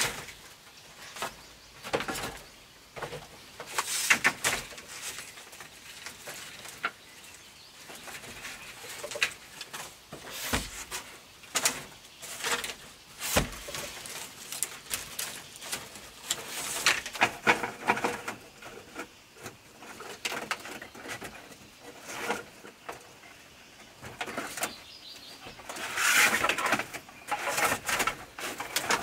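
Bamboo poles and split-bamboo strips knocking and clattering on a bamboo slat floor as they are laid and woven into place, in irregular clicks and knocks.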